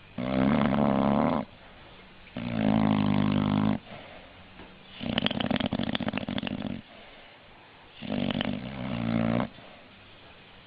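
An animal snoring in its sleep: four loud snores about every two and a half seconds, the third one rattly.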